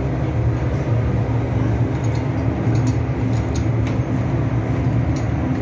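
Steady, loud drone of running machinery in an engine room, with a low hum, and a few light metal clinks from the work with chains and tools.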